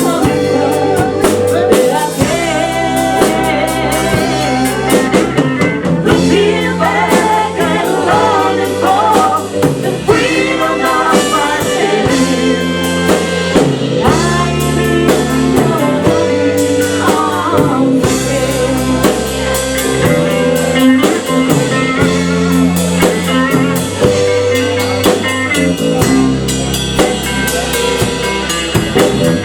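A live band playing a song, with a singer over drums, guitar and a bass line that moves from note to note.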